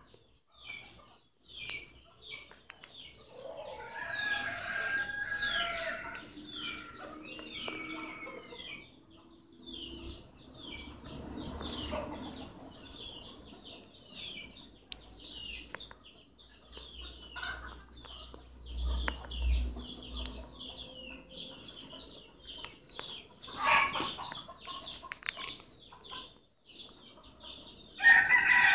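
Dense chorus of small birds chirping rapidly and without pause at dusk, with fowl calling in between and a rooster crowing loudly near the end.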